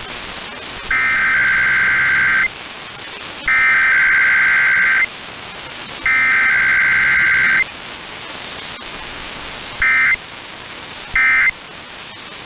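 Emergency Alert System SAME data tones: three harsh buzzing bursts of about a second and a half each, the digital message header of a required weekly test. Near the end come two short bursts, the start of the end-of-message code.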